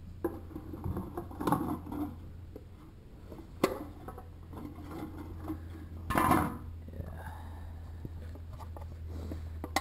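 Aluminium pop cans clinking and knocking against each other and the wooden hopper as they are lifted out to clear a jam. There is a sharp click about a third of the way in and a louder rattle a little past halfway, over a steady low hum.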